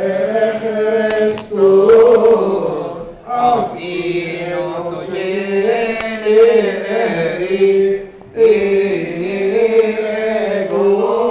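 Unaccompanied voices chanting a Coptic Orthodox liturgical hymn. It moves in long held, slowly wavering notes, with a few brief pauses for breath.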